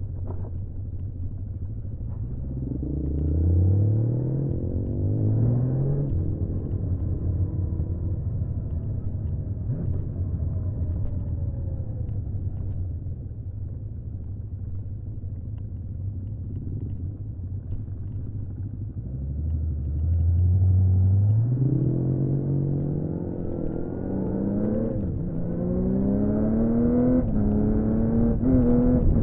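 1979 Honda CBX 1000's 1047 cc inline-six engine under hard acceleration: it revs up through two gears a few seconds in, holds a steadier note through the middle, then pulls up through several more gears in quick succession near the end, the pitch rising and dropping at each shift.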